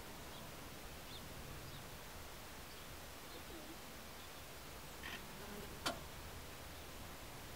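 Faint outdoor ambience: steady hiss with scattered faint, short high bird chirps, and a single sharp click about six seconds in.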